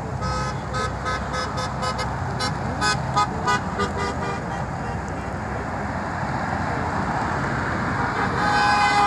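Car horns honking in a quick series of short toots, about three a second, for the first few seconds over steady road traffic noise, then a long horn blast starting near the end.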